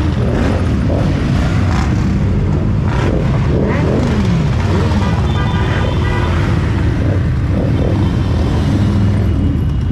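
Many motorcycle engines running together as a column of bikes, mostly big cruisers, rides slowly past close by. One engine revs up and down about four seconds in.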